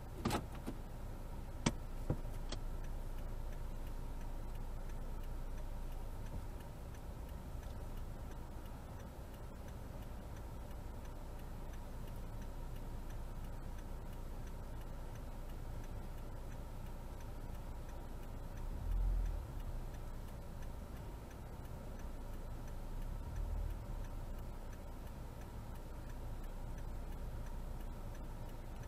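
Car's turn-signal indicator ticking steadily inside the cabin over a low engine and road hum. A few sharp clicks come in the first couple of seconds, and two dull low thumps about two-thirds of the way through.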